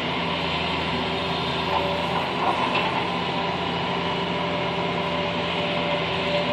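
Excavator's diesel engine and hydraulics running steadily, heard from inside the operator's cab, with a steady whine over a low hum as the bucket digs into a pile of fill dirt. A few soft scrapes and knocks come about two to three seconds in.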